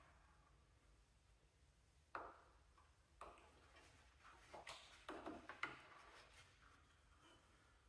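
Near silence broken by a few faint clicks and light knocks of metal parts being handled at the engine pulley of a Cub Cadet 1650 lawn tractor, most of them bunched about two-thirds of the way through.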